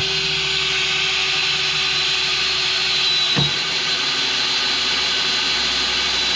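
Electric drill running steadily at full speed, boring a hole through the boat's hull to find where the keel damage ends.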